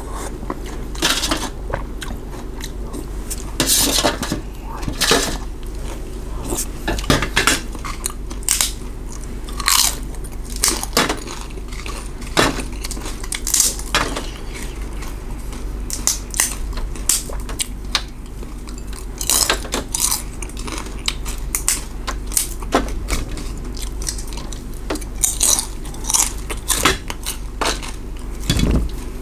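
A person eating noodle soup close to the microphone: irregular chewing and slurping sounds, with spoon and chopsticks clicking against a metal tray and small dishes.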